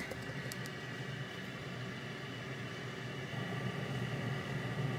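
Steady low mechanical hum with a thin high whine over a light hiss. Two faint clicks come about half a second in.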